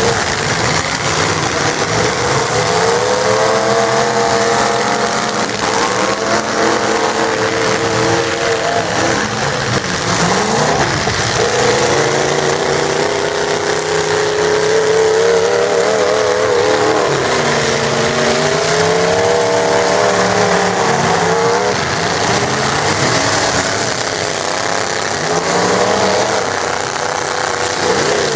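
Several demolition-derby pickup trucks' engines revving up and down over one another as the trucks manoeuvre and ram each other in the arena.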